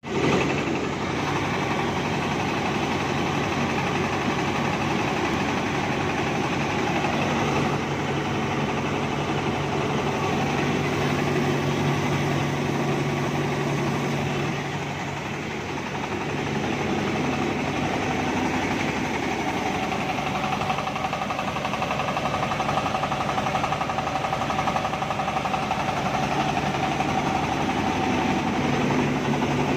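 Mobile rice mill running steadily under load: an AMEC 1115 24 hp single-cylinder diesel engine driving a Yanmar HW60 huller and a Daichi N70 polisher while rice passes through. The machine hum dips slightly for a moment about halfway.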